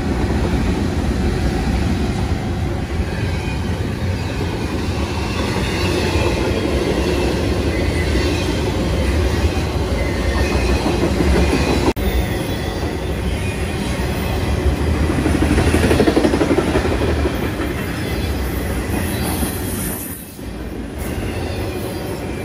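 Norfolk Southern freight train passing close by: diesel locomotives running past, then intermodal flatcars loaded with trailers rolling over the rails with a steady, loud rumble and wheel-on-rail noise.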